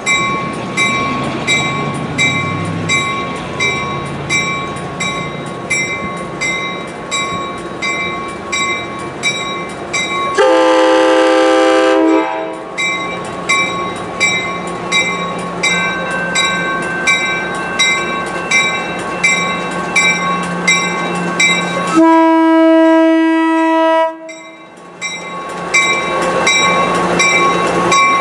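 Amtrak San Joaquins push-pull passenger train pulling out of the station, with a bell dinging about twice a second. The horn sounds two long blasts, about ten seconds in and again near the twenty-two second mark. Near the end the bilevel cars roll past close by with wheel and rail noise.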